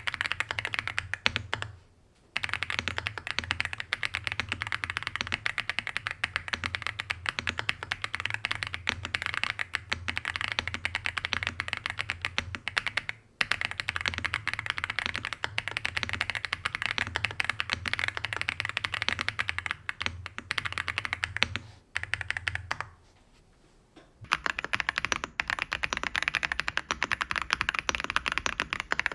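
Fast, continuous typing on an AULA F87 Pro mechanical keyboard with Himu Sea Salt non-click switches and MDA-profile keycaps: a dense run of crisp, clacky keystrokes. It stops briefly about two seconds in, and again for about two seconds late on.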